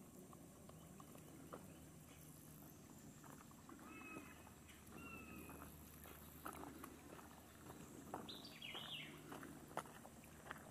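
Faint outdoor quiet with a few distant bird calls: two short whistled notes about four to five seconds in and a quick falling call near the end, over a low steady hum and scattered faint ticks.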